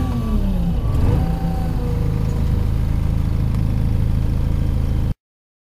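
Elgin Pelican street sweeper's engine winding down from high revs over about the first second, then idling steadily; the sound cuts off suddenly near the end.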